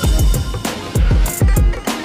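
Background music with a heavy beat: deep bass-drum hits with a falling pitch, about two to three a second, over a drum kit.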